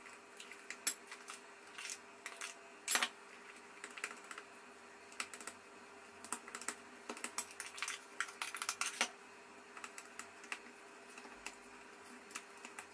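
Spatula stirring flour into a runny batter in a glass bowl, with irregular clicks and taps of the utensil against the glass.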